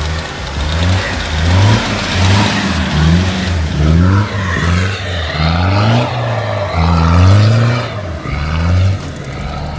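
Off-road 4x4 engine revving up and easing off again and again, its pitch rising many times in quick succession, as the vehicle strains to push through deep, wind-drifted snow.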